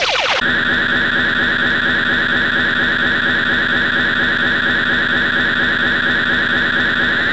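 Cartoon energy-charge sound effect: a steady electronic drone with many overtones, held unbroken as the power builds. About half a second in it takes over from a run of rapid rising laser-like sweeps, and its pitch edges up slightly at the very end.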